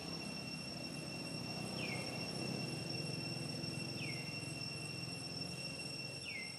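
Steady high-pitched drone of insects, with a short falling chirp about every two seconds, three times.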